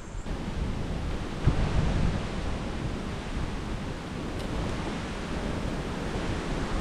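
Wind buffeting the microphone: a steady, gusting rush heavy in the low end.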